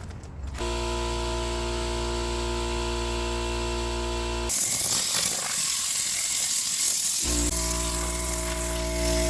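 A motor hums steadily. About halfway through, a Tornador-style compressed-air cleaning tool starts blowing with a loud rushing hiss, blasting dirt out of the car's carpets, and it keeps hissing to the end with the hum back underneath.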